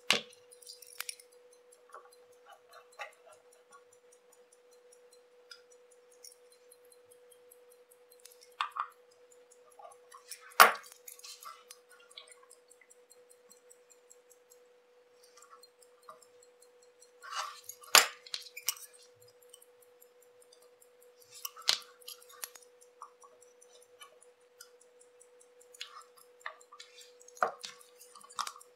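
Small metal clicks and clinks of tweezers and tools on the parts of a Minerva chronograph watch movement during assembly. The taps come a few seconds apart, the sharpest about ten seconds in and another near eighteen seconds, over a faint steady hum.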